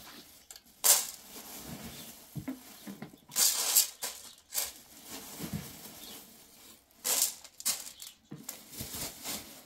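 Dry wheat grains poured by hand from a plastic bag into a steel pot, several short rattling bursts of falling grain with the bag rustling.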